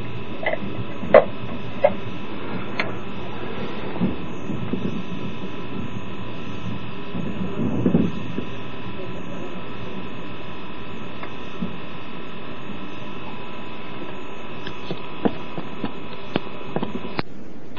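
Steady electrical hum inside an express train's passenger car stopped at a station, with a few faint clicks and knocks and a low rumble swelling around four and eight seconds in. The sound drops out briefly near the end.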